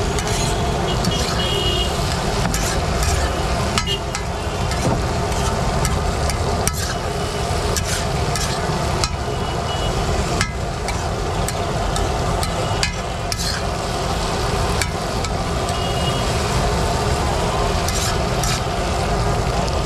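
Metal spatula stirring and scraping on a large flat iron griddle, with irregular sharp clicks and scrapes as beef tripe fries and sizzles in oil. A steady low rumble like street traffic runs underneath.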